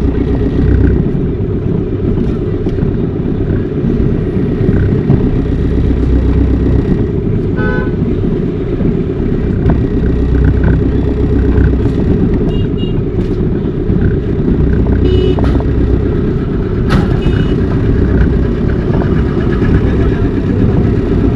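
Steady rumble of a car driving slowly through congested street traffic, with short horn toots from nearby vehicles about a third of the way in, around halfway, and again about two-thirds in.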